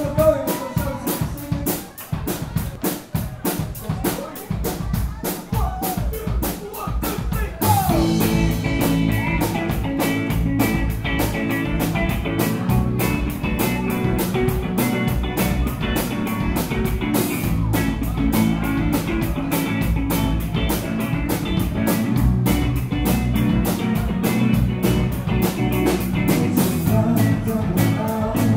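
Live band playing: a drum kit keeps a steady beat almost alone at first, then the full band with guitar comes in about eight seconds in.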